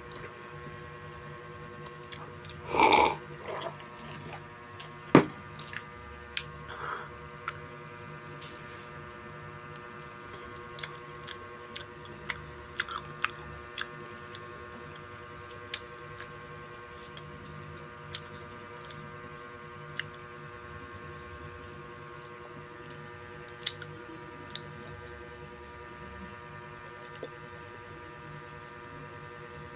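Eating and drinking mouth sounds over a steady electrical hum: one loud, short mouth sound about three seconds in, just after a sip from a mug, a sharp click about five seconds in, then scattered small clicks of chewing and handling food.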